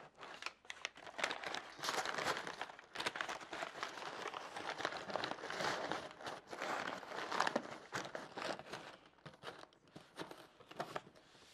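Brown kraft-paper cushioning pads (X-pad) crinkling and rustling as they are pushed into a cardboard box, with the box's cardboard being handled. The crackling thins to scattered clicks over the last few seconds.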